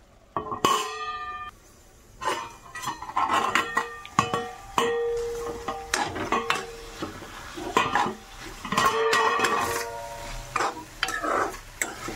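Metal spatula stirring bhaji in a steel pan: repeated scrapes and clanks of metal on metal, each ringing briefly, with a louder ringing clang about half a second in.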